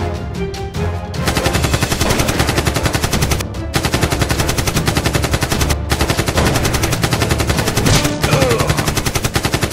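Rapid automatic gunfire in the style of a machine gun, in about four long bursts with short breaks, starting about a second in after a stretch of background music.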